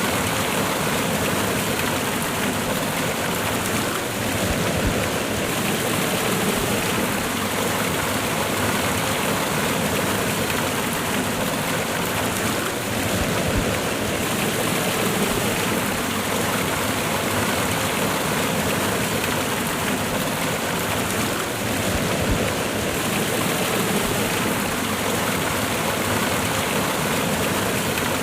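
Cascading waterfall: water rushing and splashing in a steady, unbroken roar.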